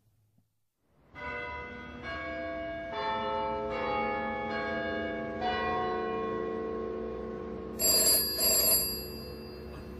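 About a second of silence, then a short musical interlude of held notes that change every second or so. About eight seconds in, a telephone bell rings one double ring.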